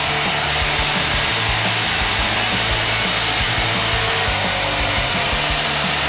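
Wood-Mizer WB2000 industrial sawmill's thin-kerf band blade cutting through a log: a steady, loud hiss of sawing.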